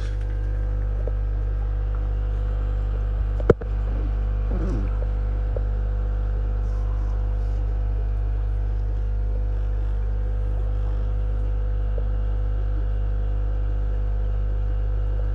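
Steady low electrical hum of fishroom equipment, with one sharp click about three and a half seconds in.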